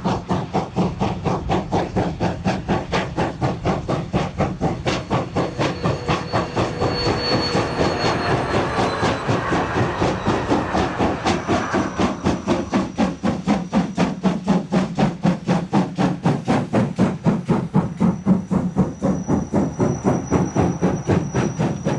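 Class 50 two-cylinder steam locomotive working a freight train, its exhaust chuffing in quick even beats, about four a second. The beats grow louder as it draws level and passes.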